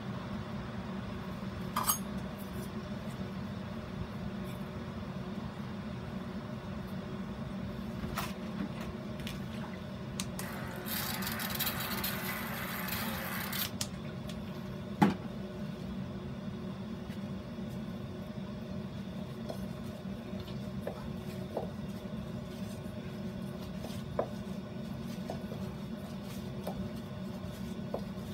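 Hands working sphagnum moss and bark chips on a plastic mounting board: a few light clicks and taps, a few seconds of hissing rustle partway through, and small scattered ticks, over a steady low hum.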